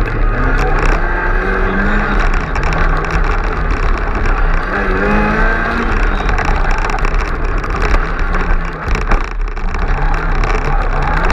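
Mk2 Ford Escort rally car's engine heard from inside the cabin, revving hard and rising in pitch through the gears, with a short lift off the throttle near the end before it picks up again.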